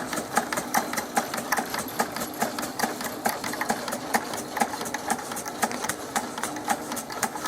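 Wilesco D24 toy steam engine running steadily, a rapid even clicking of several beats a second over a low hum.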